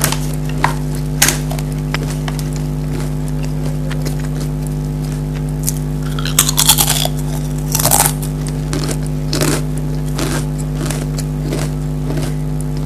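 Pringles potato crisps being bitten and chewed: a run of sharp crunches, with two louder bursts of crunching about six and a half and eight seconds in, over a steady low hum.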